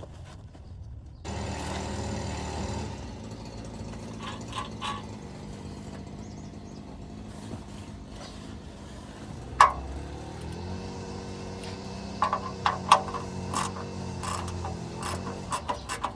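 A steady mechanical hum with a slight rise in pitch about ten seconds in, joined by a single sharp click and then a run of metal clicks and knocks near the end.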